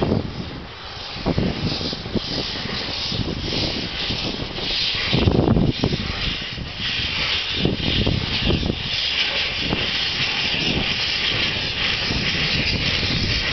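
Steam locomotive pulling away, its exhaust chuffing in regular beats about twice a second over a rumble. Near the end the beats smooth into a steadier hiss.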